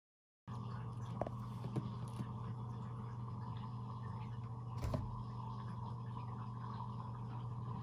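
Steady low hum of a small indoor room, with a few light clicks in the first couple of seconds and a louder short knock about five seconds in.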